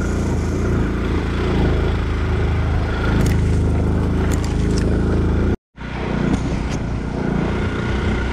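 Honda C90's small single-cylinder four-stroke engine running steadily while riding a rough dirt track, with a few light knocks along the way. The sound cuts out completely for a moment a little past halfway, then resumes.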